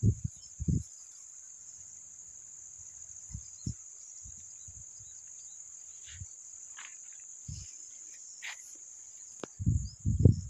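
Steady high-pitched drone of insects such as crickets, unbroken throughout, with a few faint short chirps in the middle. Loud low thumps and rumbles come at the start and again near the end.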